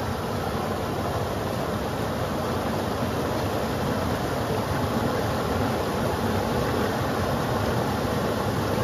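Rain-swollen creek rushing over low rock ledges: a steady, full whitewater rush with a deep rumble underneath.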